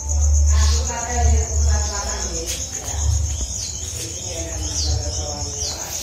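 Crickets trilling steadily in the dark, a high pulsing chirr that runs under everything. A few short falling chirps from small birds come in the second half, with bursts of low rumble on the microphone.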